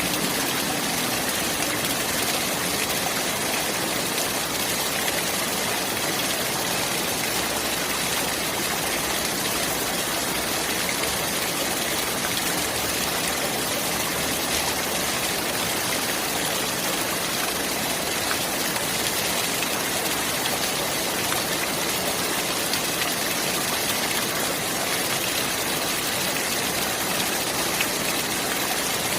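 Clear running water flowing steadily: an even, unbroken rush with no pauses or distinct splashes.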